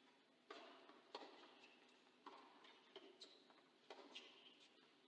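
Tennis ball struck by racquets and bouncing on the court during a rally: a faint series of sharp knocks, each with a short echo, coming about once a second.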